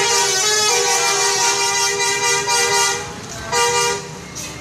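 Telolet bus horn, a multi-tone musical horn, sounding a chord in one long blast that steps to new notes under a second in, then a short second blast about three and a half seconds in.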